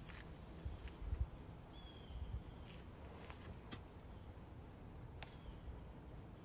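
Faint outdoor ambience among trees: a low rumble with a few soft thumps and light clicks, and a short high chirp about two seconds in.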